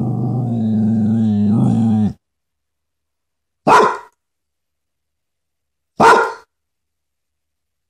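A dog growling low and steadily for about two seconds, then giving two single barks about two seconds apart, an alert set off by the question of who is at the door.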